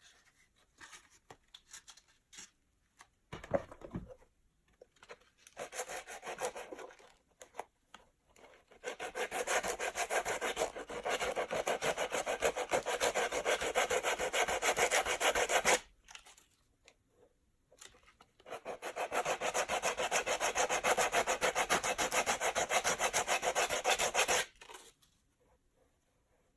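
Rough sandpaper wrapped on a wooden block rubbed rapidly back and forth along the edge of a cemented shoe sole, sanding off dried glue that squeezed out of the seam. A few light knocks of handling come first, then two long runs of fast sanding strokes with a short pause between them.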